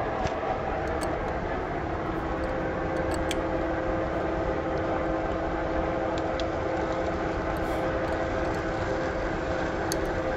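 A tractor engine running steadily, a continuous mechanical rumble. A steady hum joins it about two seconds in, with a few faint light clicks.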